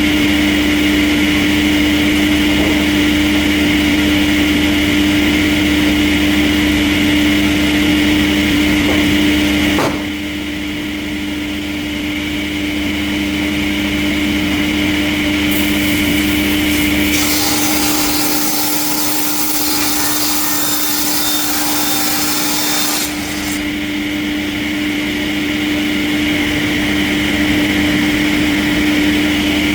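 Industrial sawmill saw running and cutting wood, with a steady machine hum. The sound changes abruptly about ten seconds in, and a loud hiss comes in for about five seconds past the middle.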